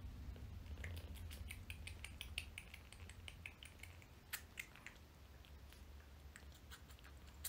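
Kitten suckling milk from a syringe tip: a rapid run of small wet smacking clicks, about five or six a second, thinning out in the second half.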